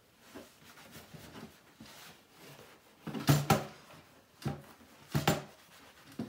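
Whiteboard eraser rubbing across a whiteboard in wiping strokes: soft and scratchy at first, then a few short, louder strokes in the second half.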